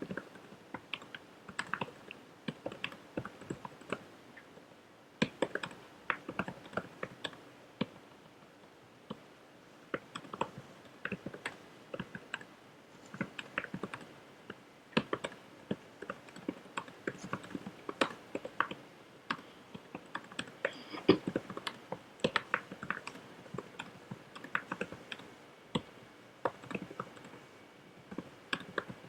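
Computer keyboard being typed on quickly, a fast irregular run of key clicks during a typing test, with a couple of brief lulls.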